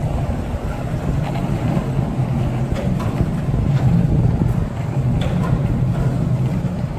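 Skateboard wheels rolling on smooth concrete, a steady low rumble with a few light clicks.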